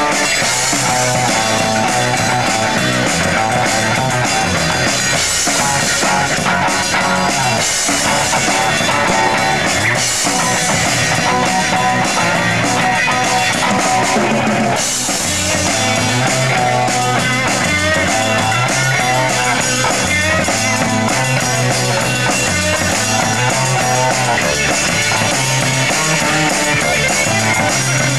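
Live rock band playing: electric guitars and a drum kit.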